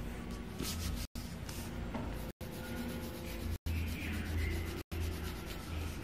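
Coloured pencil rubbing and scratching on paper in quick back-and-forth strokes as a picture is coloured in, broken by short gaps about every second.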